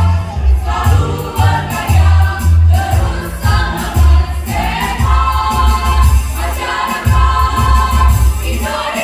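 A mixed choir singing in parts over a loud backing accompaniment with a steady, pulsing bass beat.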